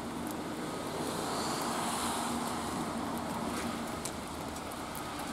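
A vehicle passing on a wet road: a hiss of tyres that swells and then fades away.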